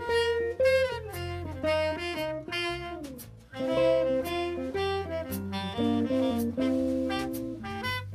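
Jazz music: a saxophone playing a melody over a steady low bass line.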